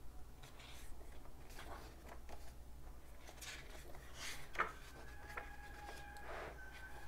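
Paper pages of a softcover book being turned and smoothed flat by hand: soft, scattered rustles, with a sharper tap of paper about four and a half seconds in.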